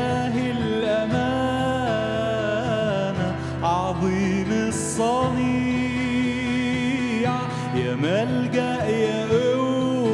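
A man singing an Arabic worship song with held notes that slide between pitches, over his own strummed acoustic guitar.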